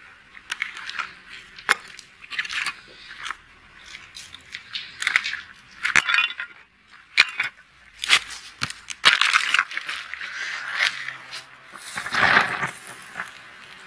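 Brittle white plaster casting molds crunching, cracking and crumbling as a gloved hand breaks them apart, with clinks of tin cans and scattering fragments. Near the end a louder, fuller burst comes as glowing molten metal is poured from a crucible into a sand-packed mold, with flames.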